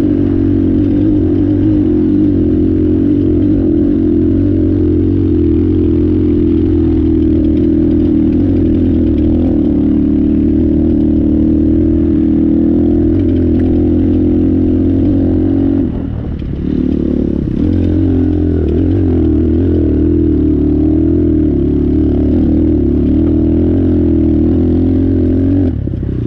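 Apollo 250RX dirt bike engine running under steady throttle while being ridden. The throttle comes off briefly about two thirds of the way through, then the engine picks up again.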